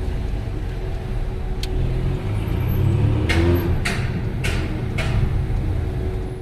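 Mercedes-AMG GLA 45's turbocharged four-cylinder engine and exhaust rumbling while driving, rising in pitch as it revs up about halfway through. There are several short sharp cracks in the second half.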